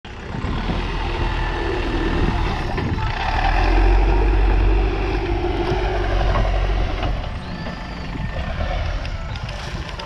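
JCB backhoe loader's diesel engine running under working load with a heavy low rumble. It swells for a couple of seconds a third of the way in, then eases off after about seven seconds.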